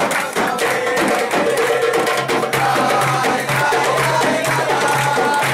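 Large hand-held frame drums beaten in a quick, steady rhythm, with men's voices singing and diners clapping along.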